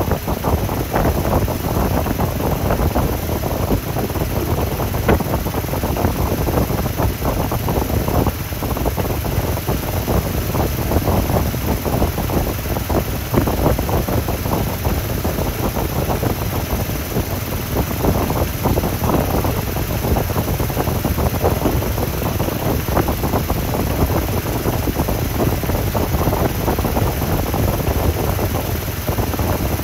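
Honda XR100R's air-cooled single-cylinder four-stroke engine idling steadily, heard close to the cylinder head. The owner puts the noise it makes down to the valve adjustment.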